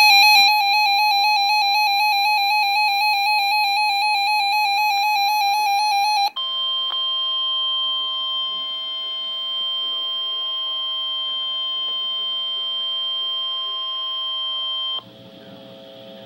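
Emergency Alert System header: a warbling electronic data tone with many overtones for about six seconds, then a steady high alert tone for about nine seconds that cuts off suddenly. A faint radio hiss and hum follows.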